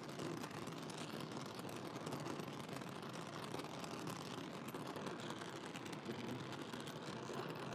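Oxy-acetylene torch with a number 4 tip burning with a steady, faint hiss while it heats a metal part toward a dull red so that it can be bent.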